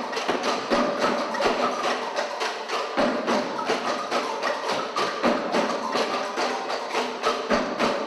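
Children's percussion ensemble playing homemade instruments of bamboo and wood in a fast, steady rhythm of many sharp wooden strikes.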